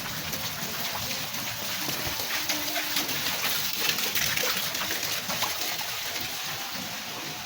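Heavy rain falling steadily, with many close drops ticking sharply on surfaces; a little heavier in the middle.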